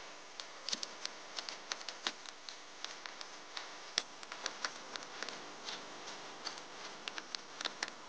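Knife cutting fried tofu into cubes: a run of irregular light clicks and taps as the blade goes through the crisp crust and meets the surface beneath.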